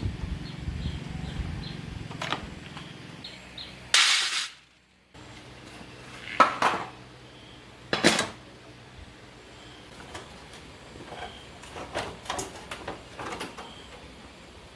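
Scattered metal clinks and knocks as tools and parts are handled, with a low steady rumble in the first few seconds. A loud rush of noise about four seconds in cuts off into a moment of silence.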